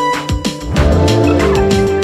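Background music with a steady beat of about two strokes a second under held melodic notes.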